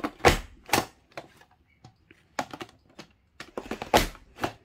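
Creative Memories honeycomb border maker cartridge punching black cardstock: two sharp clunks, then lighter clicks and taps as the cartridge is moved along the guide, then two more sharp clunks near the end.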